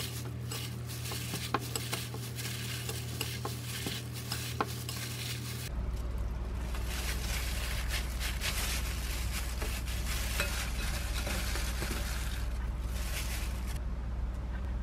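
A plastic-gloved hand tossing soy-sauce noodles and seasoned dried radish greens in a glass mixing bowl: wet squishing and glove crinkling with a run of small sharp clicks. After a cut about six seconds in, the same mixing and handling of the noodles goes on over a steadier low hum.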